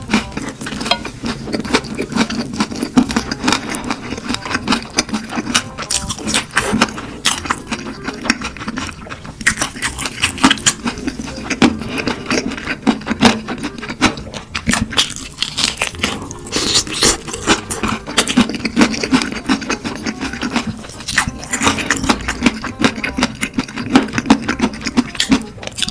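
Close-miked eating of crispy fried chicken: a dense, continuous run of crunching bites and chewing.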